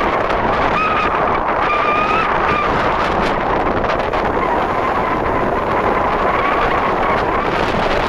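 Wind buffeting the microphone, a loud steady rush, with faint thin whistle-like tones coming and going.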